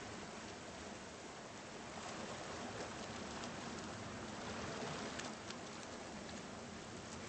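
Gentle surf: small waves washing up onto a sandy beach, a steady hiss of water with faint scattered crackles.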